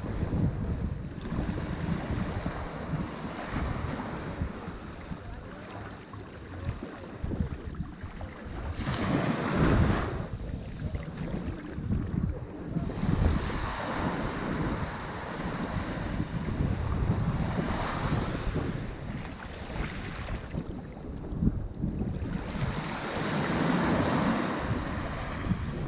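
Ocean waves breaking on a shore, the surf swelling and easing in several surges a few seconds apart, the strongest about a third of the way in.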